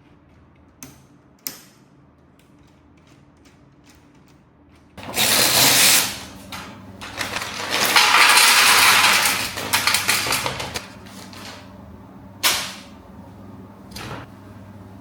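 Packaging being handled: a few light clicks, then two long spells of loud rustling, then a couple more sharp clicks near the end.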